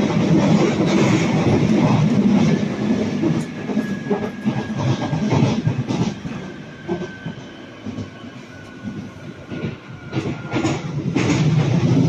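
Inside a London Underground Jubilee Line 1996 Stock carriage on the move: the wheels rumble and click on the rails. The rumble eases in the middle, where a faint high whine slowly falls in pitch, then grows louder again near the end.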